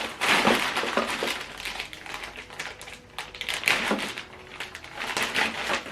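Rustling and crinkling of packaging being handled, with many small clicks and taps, louder in the first second and again near the end.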